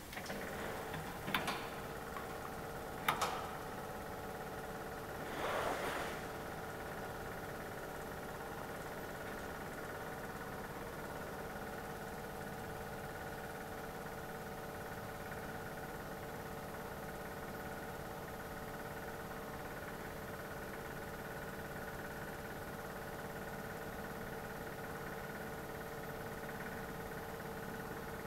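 A steady mechanical hum with a constant pitch, with two sharp clicks in the first few seconds and a brief rushing noise about five seconds in.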